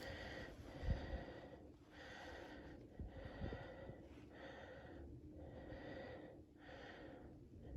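Faint, regular breathing close to the microphone, each breath about a second long, with a couple of light knocks.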